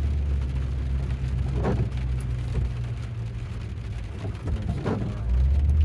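Steady low rumble of a car, with an even hiss of water.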